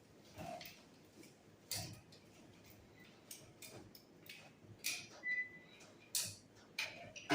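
Scattered light clicks and knocks at irregular intervals, like small objects or equipment being handled, with one brief faint whistle-like tone about five seconds in.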